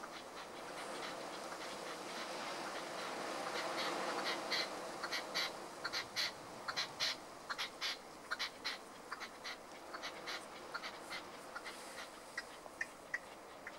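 Red-legged partridge calling: a run of short sharp notes, a few a second, loudest in the middle and fading to softer notes towards the end.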